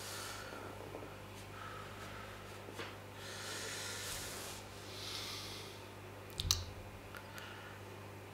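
Quiet room noise: a steady low hum under a few soft, breath-like hisses, with one sharp click about six and a half seconds in.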